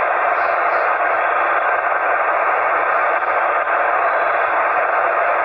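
Ham radio receiver's speaker putting out a steady hiss of band noise, with no station answering the CQ call. The hiss is heard through a narrow, voice-band filter.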